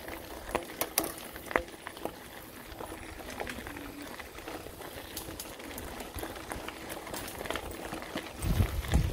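Mountain bike tyres rolling over a gravel trail: a steady crunching hiss broken by frequent sharp clicks and rattles, with a low rumble coming in near the end.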